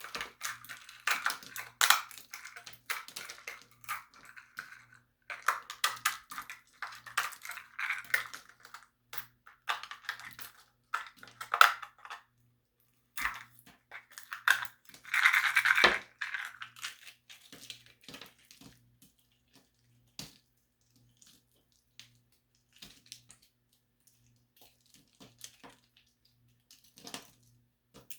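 Small plaster tiles crushed and crumbled by hand: dense crackling and crunching in short bursts with brief pauses, thinning out after about sixteen seconds to scattered faint clicks and crumbles.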